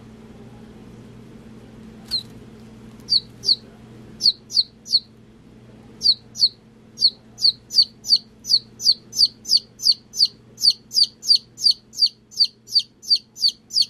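A week-old chick giving loud distress peeps, each a short call falling in pitch: a few scattered calls from about two seconds in, then from about six seconds a steady run of nearly three a second, the sound of a panicking chick. A faint low hum runs underneath.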